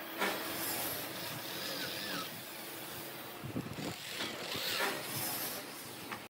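Corded electric drill with a twist bit boring into pine, the motor running as the bit cuts into the wood, louder in the second half.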